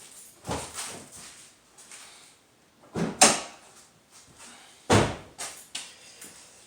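Hood of a 2006 Dodge Caravan being shut and opened on its newly replaced hood latch: three sharp metal thumps, the louder two about three and five seconds in.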